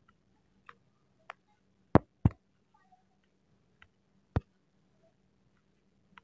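A handful of short, sharp clicks and taps from handling a smartphone. The loudest are a pair about two seconds in and a single one a little past four seconds.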